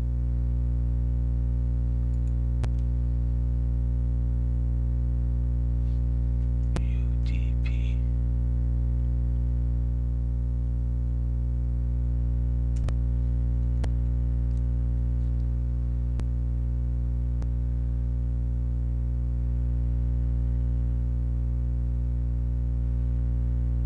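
Steady electrical hum with many overtones, picked up by the recording microphone, with a handful of isolated sharp computer mouse and keyboard clicks.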